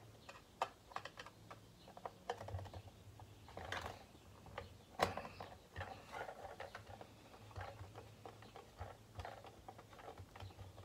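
Faint, irregular clicks and scrapes of a screwdriver working at screws inside an electric pencil sharpener's plastic housing, with the plastic shell being handled; one sharper click about five seconds in.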